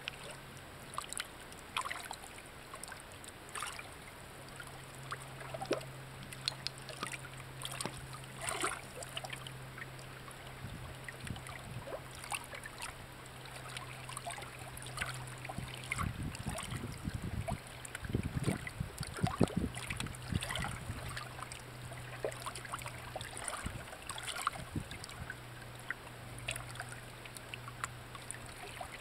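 Shallow stream water trickling over rocks, with many small crackling clicks and a steady low hum underneath. A few low thumps come about two-thirds of the way through.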